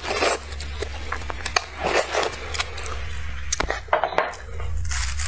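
Close-miked eating: slurping of glass noodles from a tilted plate, then wet chewing, with a few sharp clicks of the plate being handled and set down.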